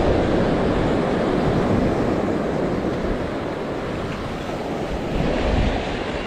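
Steady rushing of surf with wind buffeting the microphone.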